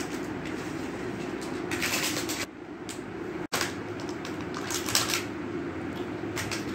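Plastic toy packaging crinkling and rustling in short bursts as it is handled, over a steady low hum. The sound cuts out for an instant about halfway through.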